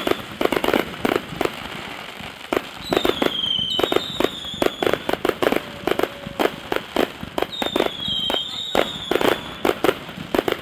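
Consumer fireworks going off in rapid clusters of bangs and crackles, with high whistles that fall slightly in pitch three times.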